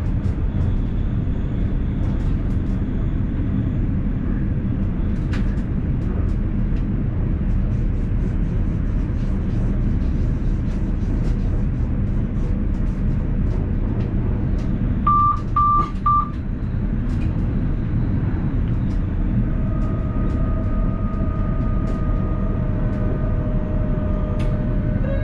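Steady low rumble of the ABe 4/12 'Saphir' electric train running, heard from the driver's cab, with scattered light clicks. About 15 seconds in come three short high beeps, and from about 20 seconds on a steady tone sounds over the rumble.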